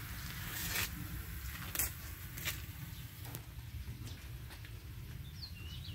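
Dried fish frying with sugar in a wok, a faint steady sizzle, with a few light clicks and taps scattered through it.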